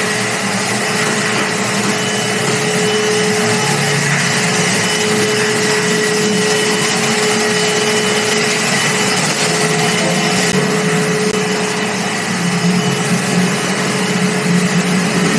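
Shop vacuum running steadily at full power, its motor giving a constant whine over loud rushing air.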